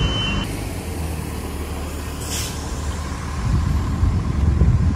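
Bus engine running with a low, steady rumble, and a short hiss of air brakes being released about two seconds in.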